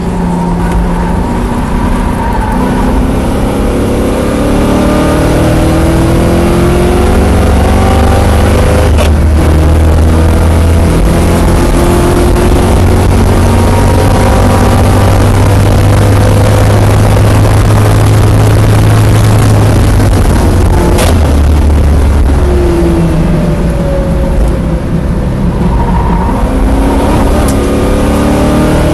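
Oldsmobile Cutlass G-body track car's engine at full throttle, heard from inside the cabin, climbing in pitch through the gears with a sharp break about 9 seconds in, holding high at speed, then a second break and the pitch falling away as the car slows for a corner near the end.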